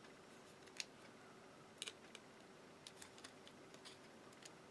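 Faint, scattered small clicks and taps, a dozen or so at uneven intervals, from fingers handling the plastic body and parts of an opened Panasonic RQ-NX10 cassette walkman.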